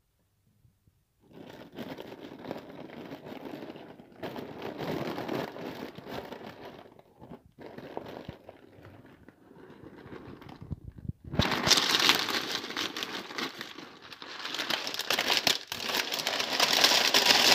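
Broth bubbling in a frying pan with rice noodles and vegetables, stirred with a wooden spatula: a dense crackly, crinkling noise that starts about a second in and gets louder about eleven seconds in.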